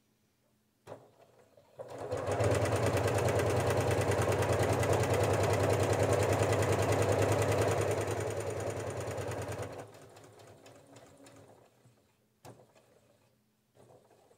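Janome sewing machine with a walking foot stitching through layered fabric at a fast, even pace. It starts about two seconds in, runs steadily for about eight seconds, and winds down and stops near ten seconds, with a small click before it starts and another after it stops.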